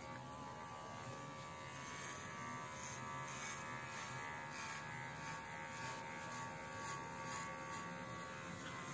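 Baorun P2 cordless pet hair trimmer running with a steady, quiet hum while it clips a dog's coat.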